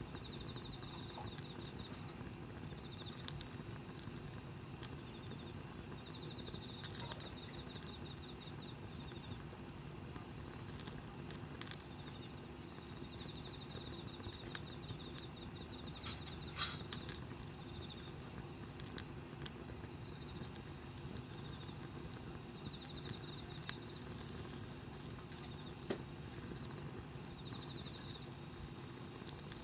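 Wood fire giving occasional sharp pops and clicks over a steady background. Insects trill in short pulsed stretches, and from about halfway a higher steady insect buzz comes and goes every few seconds.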